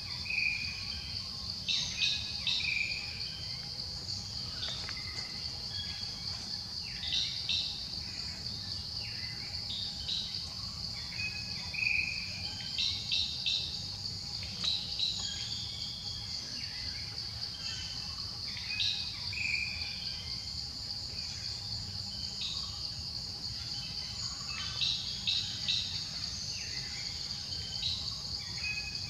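Forest ambience: a steady, high-pitched insect drone, with bird calls every few seconds and short clusters of quick chirps.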